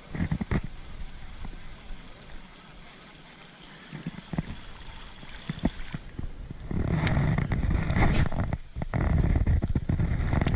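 Water sloshing and a few sharp knocks around a kayak, then gusty wind buffeting the microphone from about six and a half seconds in.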